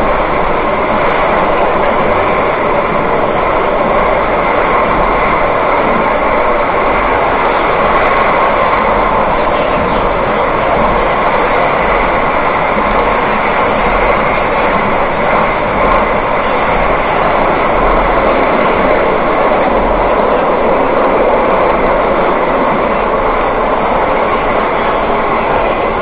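Seville Metro train running at steady speed through a tunnel, heard from inside the passenger car: an unbroken, loud noise from the wheels and running gear.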